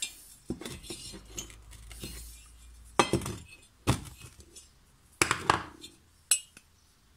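Sharp metallic clinks and taps, about four or five spread over a few seconds, each with a short ring, as a hand drill and a small decompression valve are handled against an aluminium moped cylinder head.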